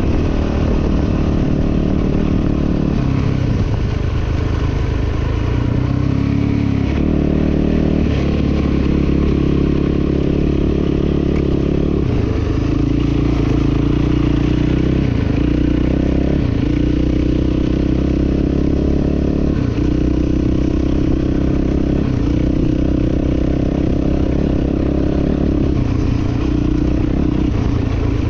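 Dirt bike engine running hard, its pitch climbing and dropping back again and again as the throttle opens and closes and the gears change.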